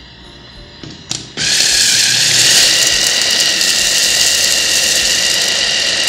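Electric mini food chopper running, its motor whirring steadily with a high whine as it minces fresh herbs, garlic paste and peppercorns. The motor starts just after a click about a second in.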